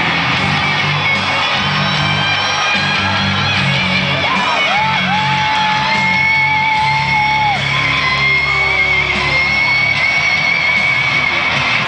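Rock entrance music driven by electric guitar plays over the arena sound system, with the crowd yelling and whooping along. Long high notes are held for a few seconds in the second half.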